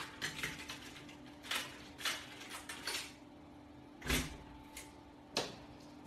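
A few short knocks and rustles, with a heavier thump about four seconds in, over a steady low hum.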